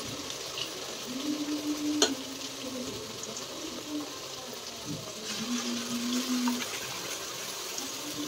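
Chopped onions frying in hot oil in an aluminium kadai: a steady sizzle, with a single sharp metal clink about two seconds in. A low steady tone sounds twice over it, each time for about a second.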